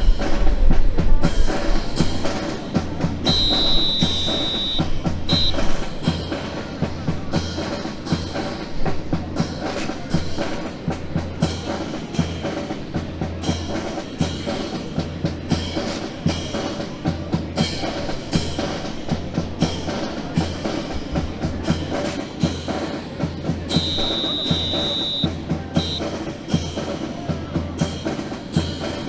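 Music with a steady drum beat; a high held tone sounds twice, a few seconds in and near the end.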